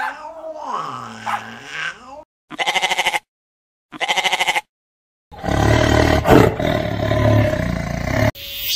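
A run of animal calls: a long wavering low call, then two short quavering bleats with a pause between them, then a loud rough call lasting about three seconds.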